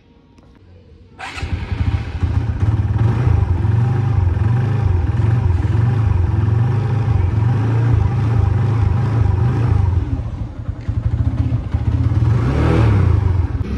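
Motor vehicle engine running while under way, with a heavy low rumble; it starts abruptly about a second in.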